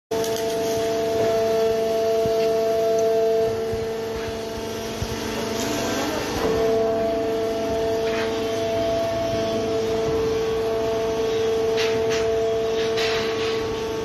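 Hydraulic power unit of a PAM Super 75 fully automatic horizontal baler running: a steady mechanical hum with a whine held at two pitches. The whine eases for a few seconds near the start, then comes back steady.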